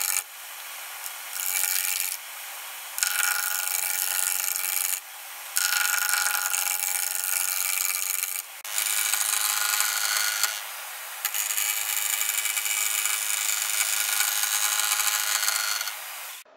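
A gouge cutting spinning spalted beech on a wood lathe: a loud rasping hiss as shavings come off the blank, over a steady tone from the turning lathe. The cut breaks off briefly several times as the tool is lifted and presented again, and it stops just before the end.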